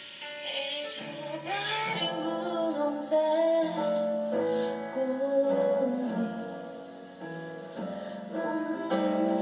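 A song with a woman singing over piano, played through a cork Bluetooth speaker pushed into the neck of a drinks bottle that serves as its sound box; the bass comes through fuller.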